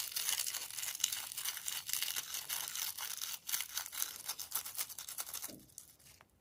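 Dense crinkling, crackling handling noise that stops about five and a half seconds in.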